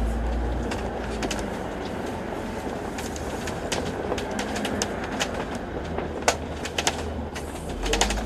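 Alexander Dennis Enviro500 MMC double-decker bus in motion: a steady low engine and road rumble with frequent, irregular rattles and clicks from the body. The low rumble eases about a second in and swells again near the end.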